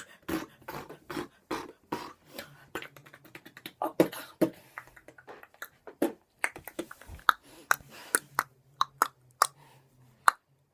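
A person beatboxing: a quick, uneven run of sharp mouth-made clicks and pops.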